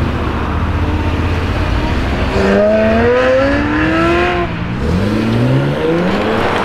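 Ferrari F355 Spider's V8 accelerating hard away. The engine note rumbles low at first, then climbs in pitch, dips at a gear change a little after halfway, and climbs again.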